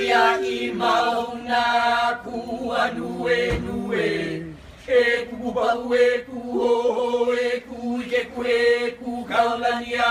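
A group of voices chanting a Hawaiian chant in unison, holding long steady notes with short breaks for breath.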